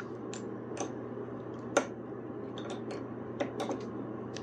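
Scattered light clicks and taps of metal cable lugs and hand tools being handled at a winch's electrical terminals, one sharper click near the middle, over a steady hum.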